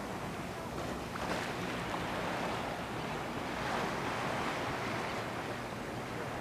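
Small waves lapping and washing on a calm sea, a steady wash that rises and eases irregularly, with a low rumble of wind on the microphone.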